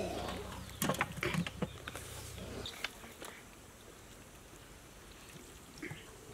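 Wet raw chicken pieces being handled in a bowl of water: a few sharp wet slaps and splashes in the first couple of seconds, then only faint outdoor background.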